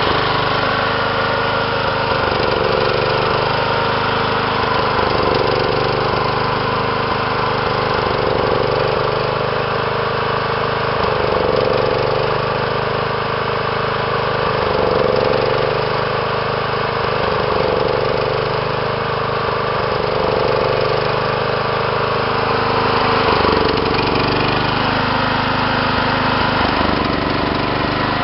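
John Deere 216 lawn tractor engine idling rough, its sound swelling and easing about every two and a half seconds.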